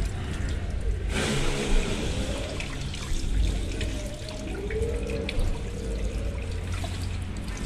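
Running hose water splashing and spraying over a motorcycle brake master cylinder body as it is rinsed by hand over a basin. The water gets louder about a second in as the flow hits the part.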